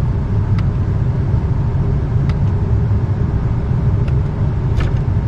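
Lennox package unit's belt-driven indoor blower running, a steady low rumble of moving air, with a few faint clicks.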